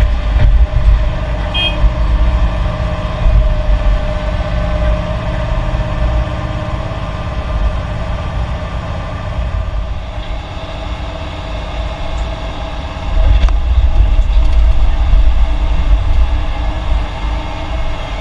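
Heavy diesel construction machinery running steadily with a deep rumble and a steady whine, getting louder about thirteen seconds in.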